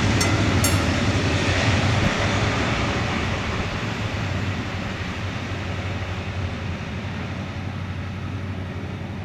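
Freight train of chemical tank wagons rolling past on the rails, with a few sharp wheel clicks in the first second, then a steady rumble that slowly fades as the train moves away.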